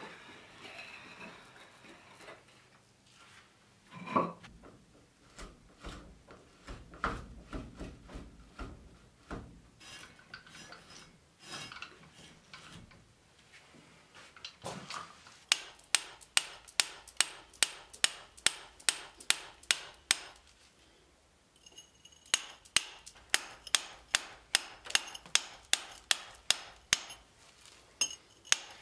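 Clinks and knocks of a hoist chain and pulley as a heavy anvil is lowered onto a stone block, with a louder thump about four seconds in. From about halfway, a hammer strikes a hand chisel cutting into the stone block at a steady two to three blows a second, in two runs with a short pause.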